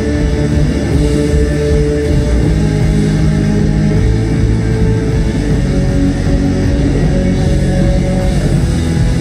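Rock band playing live, amplified: electric guitars over a drum kit in an instrumental passage without vocals.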